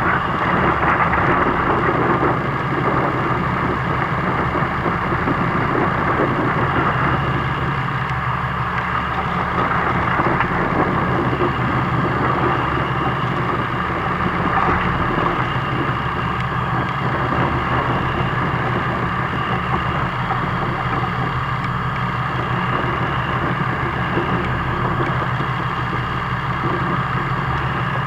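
Fishing boat's engine running steadily with a low hum, under a rough hiss of water and wind.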